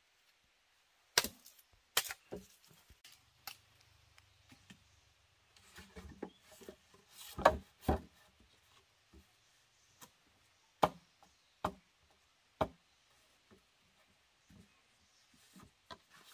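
Wood being chopped with a blade: a series of sharp, irregularly spaced knocks, a few much louder than the rest, with quieter taps between.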